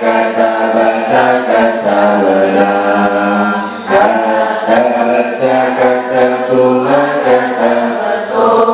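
A group of girls' voices chanting in unison in long, drawn-out sung notes. The students are reciting Arabic verb forms together as a class drill.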